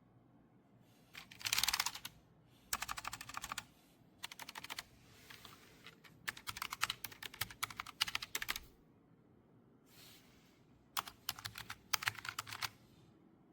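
Typing on a Logitech low-profile mechanical keyboard: rapid runs of sharp key clicks in several bursts, with short pauses between them.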